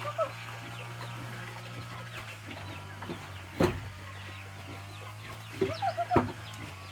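Chickens clucking in short quick runs of calls, near the start and again near the end. A single sharp knock comes about halfway through, over a steady low hum.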